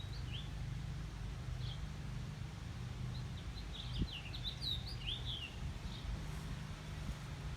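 Small bird chirping: short high chirps, a few scattered at first, then a quick run of them in the middle, over a steady low hum.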